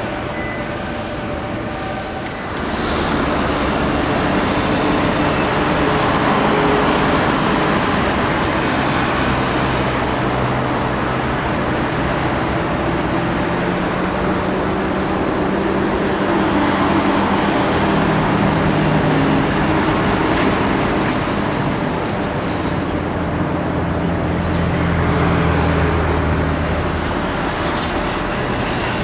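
Road traffic: motor vehicle engines and tyre noise going past, swelling about two and a half seconds in and staying loud, with engine tones slowly shifting in pitch.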